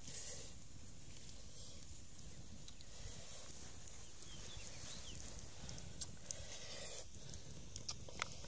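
Steady low outdoor rumble with a handful of short, sharp clicks and knocks as river mussel shells in an aluminium pot and thin sticks for a grill rack are handled.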